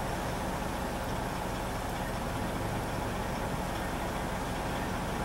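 A steady low engine hum over a constant hiss.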